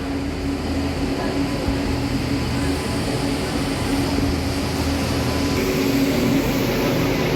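Passenger train running along the track: a steady rumble and rail noise with a constant low hum, growing slightly louder.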